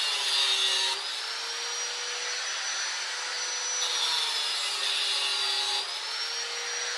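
Angle grinder running with a steady whine, biting into a motorcycle wheel rim twice: its pitch drops and a loud, bright grinding noise rises for about the first second and again from about four to six seconds in.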